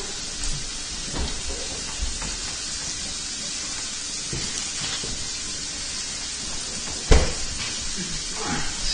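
Food frying in a hot pan, a steady sizzling hiss. There is a single sharp knock about seven seconds in.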